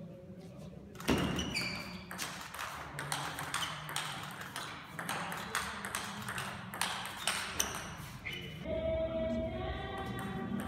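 Table tennis rally: the ball clicking off the bats and the table in quick succession, with a louder hit about a second in. Background music comes in near the end.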